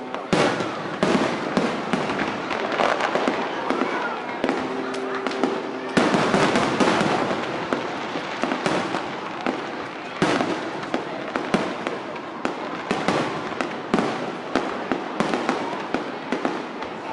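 Fireworks display: a continuous run of bangs and crackling bursts. The biggest bangs come about a second in, at about six seconds and at about ten seconds. Crowd voices sit under it, and a brief held tone sounds just before the six-second burst.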